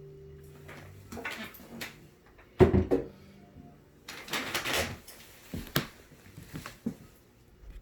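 The last guitar chord rings out and fades in the first second, followed by handling noise: rustling, clicks and knocks, with one sharp thump about two and a half seconds in.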